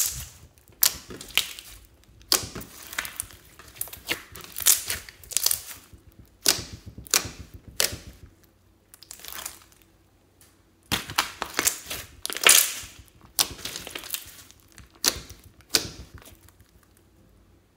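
Hands squeezing, pressing and poking a large blob of glitter slime, giving irregular bursts of wet squelching and crackling. There are brief pauses between squeezes, a longer lull about ten seconds in, and it goes quiet near the end.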